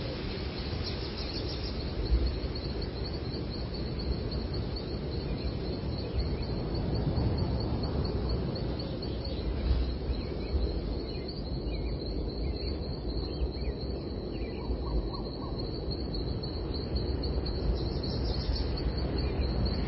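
Small birds chirping and singing, a high rapid trill repeating over and over with scattered short calls, over a steady low rumble of background noise.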